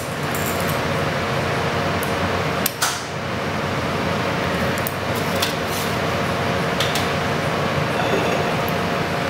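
Steady hum of kitchen ventilation, with a few light clicks and taps of utensils on the plate and tray, the loudest two close together about three seconds in.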